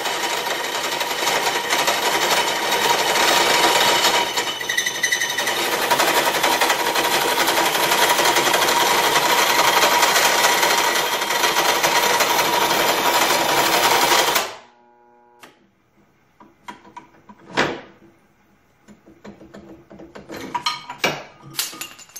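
Bench drill press driving a hole saw through a metal exhaust tube: a loud, steady grinding cut with a thin steady whine. The cut stops abruptly about fourteen seconds in, followed by a few light metal clicks and knocks.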